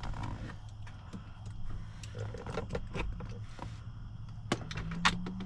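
Scattered plastic clicks and knocks from handling and fitting the cabin air filter and its tray into the housing behind the glovebox, over a steady low hum.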